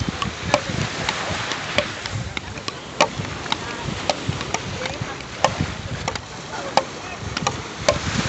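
Wooden beach-tennis paddles striking a ball: sharp, hollow clacks at irregular intervals, often more than one a second as several rallies go on at once, over a steady rushing background.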